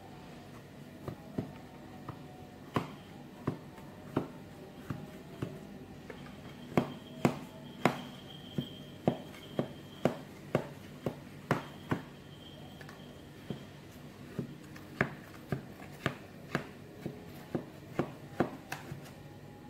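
A metal knife clicks and taps against the sides of an aluminium cake pan as it is worked around the edge of a baked sponge to loosen it. The taps are sharp and irregular, one or two a second, with a thin high ringing twice in the middle.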